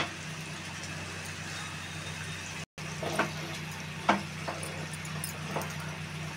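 Wooden spatula stirring a thick gravy in a pan, with a few knocks against the pan in the second half, over a steady low hum.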